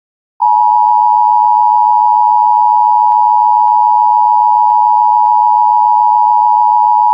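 Emergency Alert System two-tone attention signal: a loud, steady pair of pitches sounding together, starting about half a second in and cutting off abruptly near the end. It marks the start of an emergency alert broadcast, just before the alert message is read.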